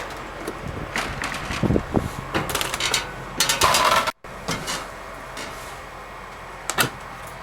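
Irregular knocks, clunks and rustling of someone moving about and handling things, with a sudden brief dropout in the sound a little past four seconds in.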